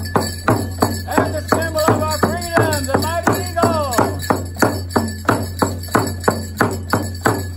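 Native American drum beaten with a stick in a steady beat, about three strokes a second, with a man singing a chant in repeated falling phrases over it.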